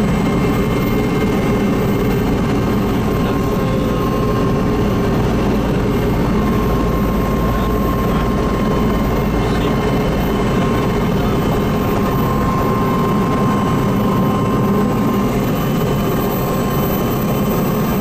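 An engine running steadily: a loud, even drone with a faint constant whine and no change in speed.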